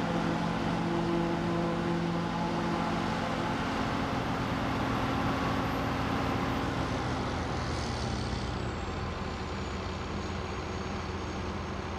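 John Deere tractor engine and the pull-type forage chopper it drives, running steadily while chopping standing corn for silage. A faint high whine slowly falls in pitch through the middle.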